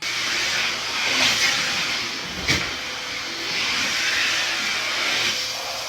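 Steady hissing rush of cage cleaning, with one sharp click about two and a half seconds in.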